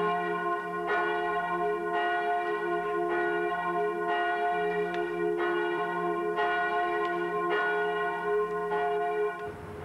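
A large church bell swung by hand from a rope, its clapper striking about once a second, each stroke ringing on into the next. The ringing cuts off just before the end.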